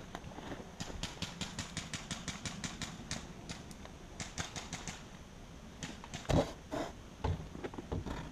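Airsoft gunfire: two runs of sharp, rapid clicks, about eight a second, the first lasting a couple of seconds and a shorter one after it. A few louder knocks come near the end.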